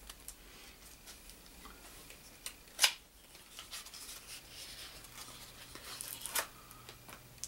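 A cardboard card-deck box being opened by hand and the cellophane-wrapped stack of cards slid out: faint rustling and scraping, with a sharp click about three seconds in and a smaller one near the end.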